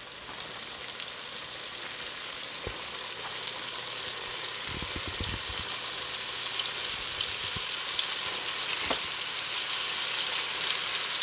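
Flour-battered bluegill pieces frying in a skillet of hot oil: a steady crackling sizzle that grows louder as more pieces go in, the oil running a bit hot. A few soft knocks about halfway through.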